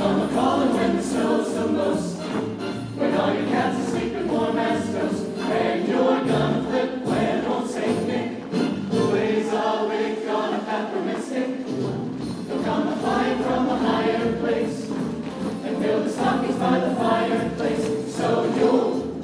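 A choir singing in parts.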